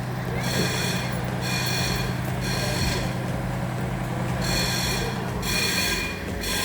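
A fire alarm sounding in repeated pulses of about a second, over the steady low hum of an idling fire truck engine.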